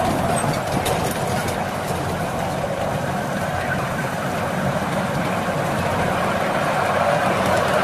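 A miniature 7¼-inch gauge diesel-outline locomotive's engine running steadily as the train rolls along, with the wheels rumbling on the rails.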